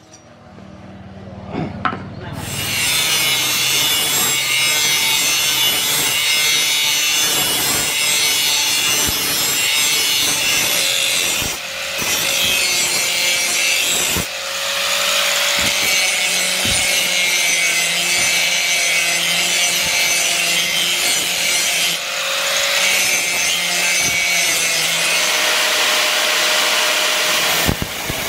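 Handheld angle grinder's abrasive disc grinding a steel machete blade: a loud, steady hiss of disc on metal over the motor's whine, starting about two seconds in, with a few brief dips.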